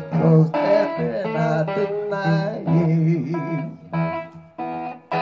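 Blues song: a picked acoustic guitar with a voice singing over it, the voice bending and wavering in pitch.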